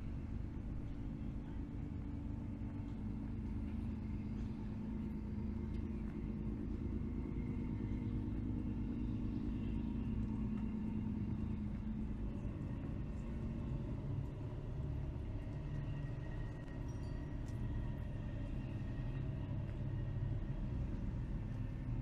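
A steady low engine rumble with a droning hum that drops lower in pitch about halfway through.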